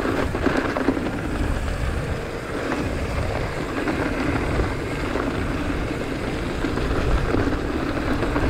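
Mountain bike riding down a dry dirt singletrack: a steady rumble of wind over the microphone and the tyres rolling over dirt and pine needles.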